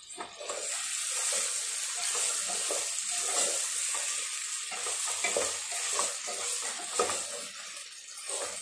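Raw chicken pieces sizzling in hot oil with onions, tomatoes and ginger-garlic paste in a non-stick pot, stirred with a wooden spatula. The spatula scrapes and turns the pieces in short, irregular strokes over a steady sizzle.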